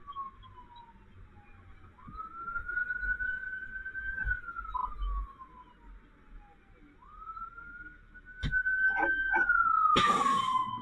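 Fire engine siren heard from inside the cab, wailing in slow cycles: the pitch jumps up, holds, then slides slowly down, about every five seconds. Near the end there are a few clunks and a short, loud hiss.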